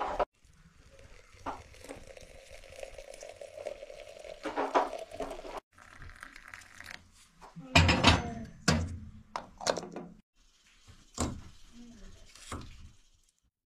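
Handling sounds of tea-making with a glass teapot: faint rustling and light taps as loose black tea goes into its steel mesh strainer, then boiling water poured in from an enamel kettle. About eight seconds in come a few heavy clunks and clinks of the kettle and teapot on the stove top, and near the end a few light knocks.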